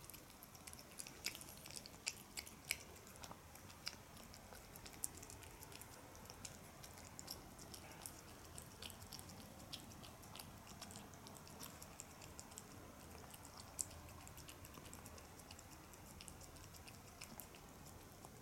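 A cat eating soft flaked tuna from a plate: faint, irregular wet chewing and lapping clicks, with a few sharper clicks now and then.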